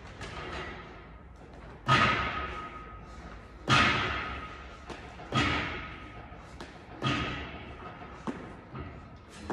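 Steel pull-up rig banging and ringing with each kipping rep on the bar: four loud clanks about every second and a half to two seconds, each leaving a metallic ring, then lighter knocks near the end.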